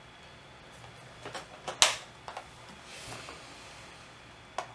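Small plastic clicks from handling the ROM switcher's connector and wires by hand, with one sharper snap about two seconds in, a soft rustle a second later and a last click near the end.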